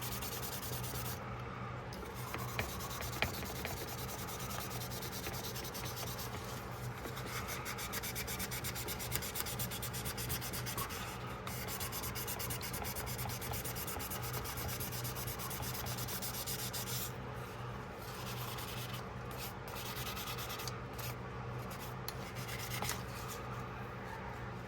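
Sandpaper rubbed steadily back and forth over the metal back spring of a pocketknife, a continuous scratchy rasp, with a faint steady hum underneath.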